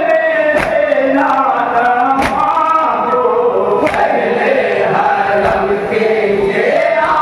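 A group of men chanting a nauha, a Shia lament for Imam Husain, together in a slow, wavering melody. Sharp hand-slaps of chest-beating (matam) come about every second and a half in the first half.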